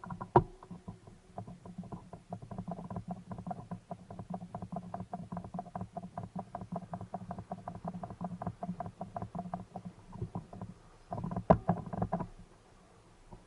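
Level crossing warning bell ringing in rapid, even strokes over a low steady hum, with a louder knock just after the start and another cluster of knocks about eleven seconds in.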